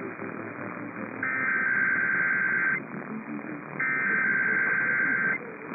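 Emergency Alert System SAME header: two bursts of buzzy digital data tones, each about a second and a half long with about a second's gap between them, over a radio broadcast with static hiss between the bursts. The bursts mark the start of an EAS test message.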